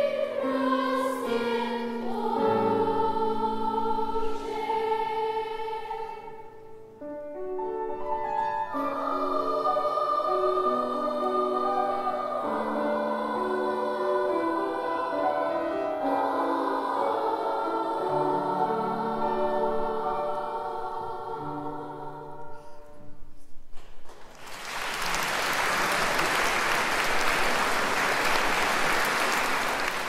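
Girls' choir singing in a large reverberant hall. The song ends about twenty-four seconds in and is followed by audience applause.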